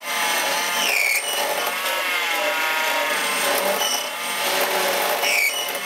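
Mini lathe cutting metal with its worn original timing belt screaming: a steady harsh, ringing machine noise with sharp squeals that dip in pitch about a second in, near four seconds and again after five seconds.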